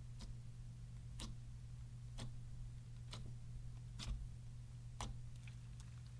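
Clear slime being pressed and worked by hand, giving a sharp click about once a second, over a steady low hum.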